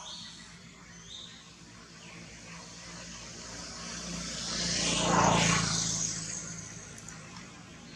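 An engine passes by: a hum that swells to its loudest a little past the middle and then fades away. Two short high chirps sound near the start.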